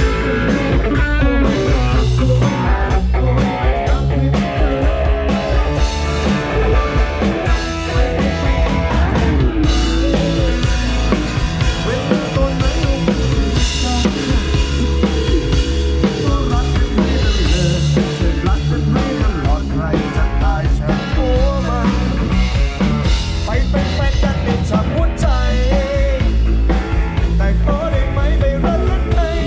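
Rock band playing loud and without a break, with drum kit and electric guitar, during a sound check.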